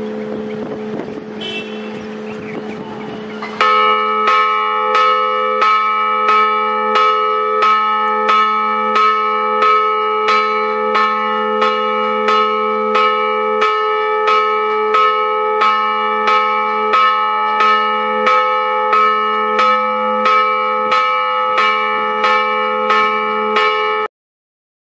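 A large church bell struck over and over by a Pulsator automatic electric bell ringer. For the first few seconds the bell hums as an earlier ring dies away. About four seconds in, a quick, even tolling starts, roughly three strikes every two seconds, and the bell's ring builds up under them. It stops abruptly near the end.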